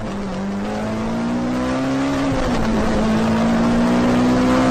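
Heavy rain pouring down onto a street and pavement, with a steady droning tone underneath that rises slightly in pitch.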